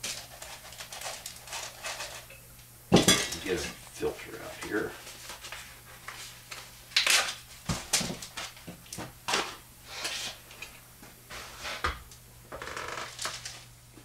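Clinks and knocks of a metal gravity-feed spray gun cup and plastic mixing containers being handled on a workbench, with a paper paint strainer crinkling. The loudest knock comes about three seconds in, and more come around seven to eight seconds.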